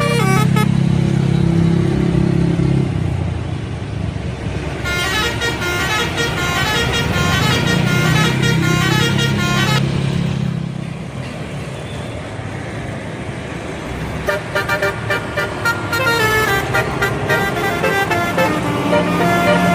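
Bus telolet horn, a set of multi-tone air horns, playing quick tunes of stepping notes. The tunes come in from about five seconds in and again in the last few seconds, over the low, steady running of the bus's engine.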